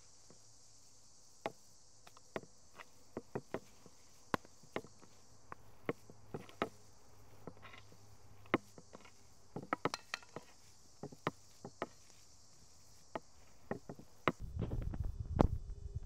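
Small cleaver chopping raw chicken on a wooden board: irregular sharp knocks, sometimes in quick runs, over insects buzzing steadily. A low rumble sets in near the end.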